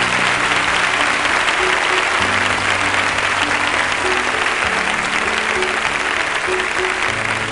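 A large audience applauding steadily, over background music of sustained low notes that change every two and a half seconds or so.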